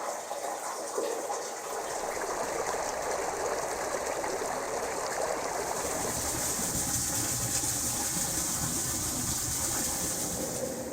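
Water running and gushing through a drain pipe, turning into a fuller rush with more hiss and low rumble about halfway through.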